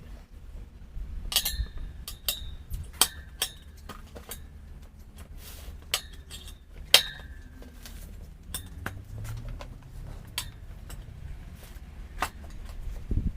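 Metal tools and parts clinking and knocking together in an irregular series of sharp strikes, some ringing briefly, while a motorcycle's front tyre is changed.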